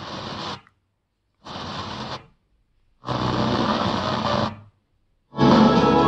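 FM car radio head unit being tuned through the band: brief snatches of broadcast audio, each cut off by the muting between stations, three times. About five seconds in, a station playing guitar music locks in and keeps playing.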